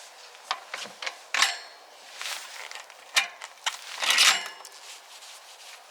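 Metal mountain-bike parts clinking and knocking as the front wheel is fitted to the upturned bike: a series of sharp clinks, the two loudest about a second and a half in and about four seconds in, each with a brief metallic ring.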